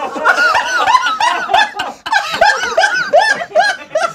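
A group of people laughing hard, a dense run of quick repeated ha-ha pulses from several voices at once, with a brief lull about two seconds in.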